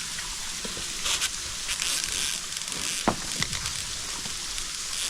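Steady hiss of falling water from the waterfall, with a few brief rustles and one sharp click about three seconds in.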